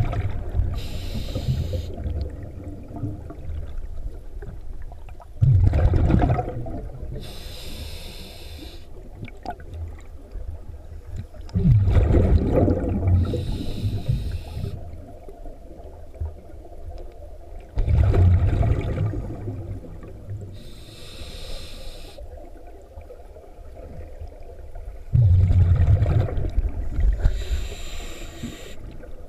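Scuba diver breathing through a regulator underwater: about every six seconds a loud rumbling burst of exhaled bubbles, each followed by a shorter hiss of air drawn through the regulator, about five breaths in all.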